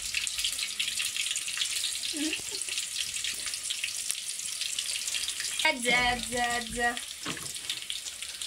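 Food frying in a pan: a steady sizzling hiss with many small fast crackles.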